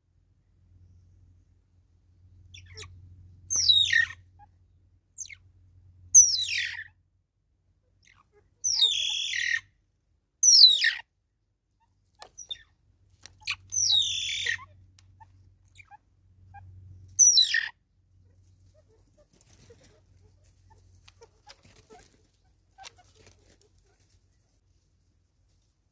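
A bird calling repeatedly, about six short calls that sweep down in pitch, spaced a few seconds apart, falling quiet after about 18 seconds.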